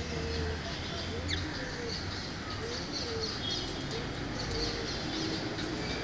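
Cockatiels chirping in short high calls, over a series of low rising-and-falling coos about once a second.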